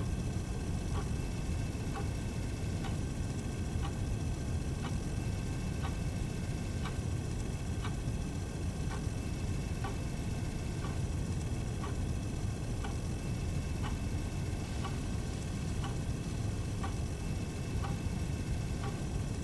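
Clock ticking about once a second over a low, steady rumble.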